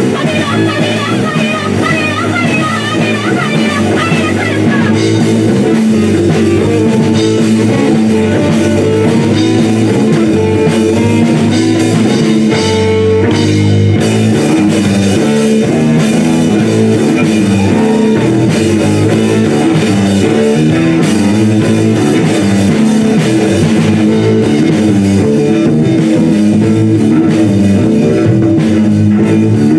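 Rock band playing, with guitar and drum kit; the music gets fuller and a little louder about five seconds in.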